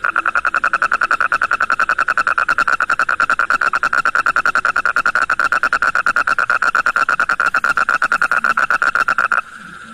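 Toad calling with its throat vocal sac fully inflated: one long, fast-pulsing trill held at a steady pitch. It stops suddenly near the end, leaving a fainter trill going on in the background.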